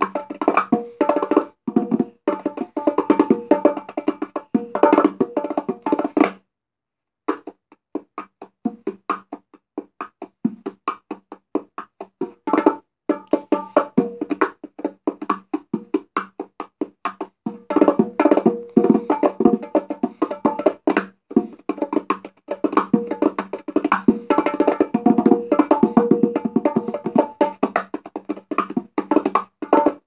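Meinl Marathon Exclusive Series bongos, freshly tuned, played by hand in fast rhythmic patterns of slaps and open tones on both drums. The playing breaks off for about a second six seconds in, goes sparser for a while, then turns dense again from about eighteen seconds on.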